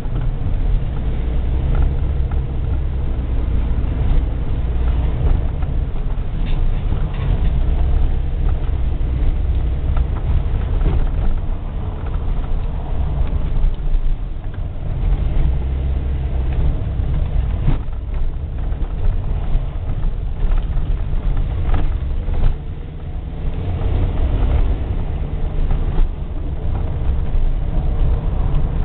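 Car engine and road noise heard from inside the cabin while driving, a steady low rumble with a few brief knocks scattered through it.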